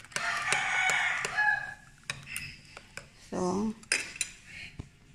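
Fork whisking batter in a ceramic bowl, its tines clicking and tapping against the bowl over and over. A loud cry lasting about a second and a half sounds over it near the start, and a short voice-like sound follows a little after three seconds.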